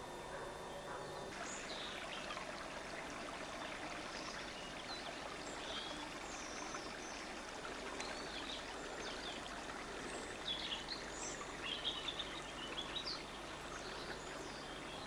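A small stream running steadily, with birds chirping over it, busiest near the end.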